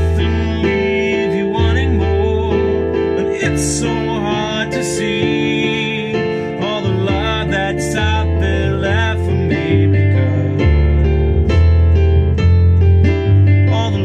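A man singing a slow song, accompanying himself on a digital piano, with sustained bass notes and held chords under a wavering sung melody.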